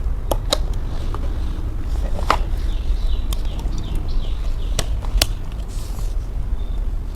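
Scattered sharp clicks and knocks as the plastic and metal parts of an ab roller wheel are handled and fitted together, over a steady low hum.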